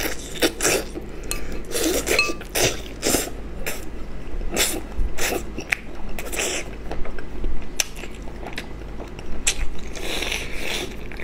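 Close-up eating sounds: a person sucking and gnawing meat off a chicken head's small bones and chewing, in many short, irregular wet bursts.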